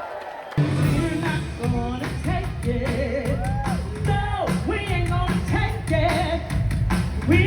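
A song with a singer over a full band, starting abruptly about half a second in after a quieter build-up.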